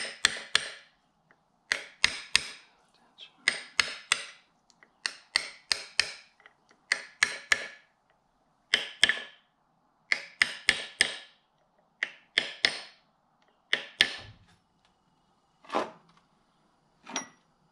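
A flat steel hand tool working against a jet ski's mid-shaft support bearing housing: repeated short metal-on-metal scraping strokes, each with a few sharp clicks, about one every second or so, spacing out near the end.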